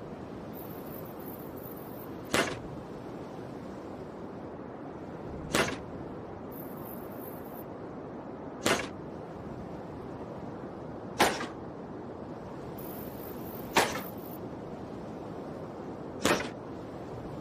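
Bow-and-arrow sound effect: six short, sharp shots of a bow and arrow, one every two and a half to three seconds, over a steady background hiss.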